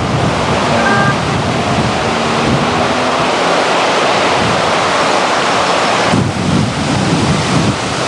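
Fast-flowing floodwater rushing in a steady, loud wash, with wind buffeting the microphone.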